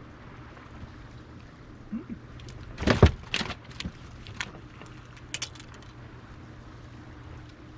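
Clatter of bowfishing gear being handled on a boat deck: a quick run of sharp metallic clicks and knocks about three seconds in, the loudest near the start of that run, then a few lighter clicks a little later. A steady low hum runs underneath.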